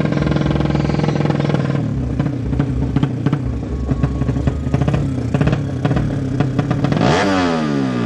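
A 200cc horizontal-cylinder drag bike engine running in the paddock. It holds steady at first, then idles unevenly with a rattling clatter, and is blipped about seven seconds in, the revs jumping and then falling away, before rising again at the very end.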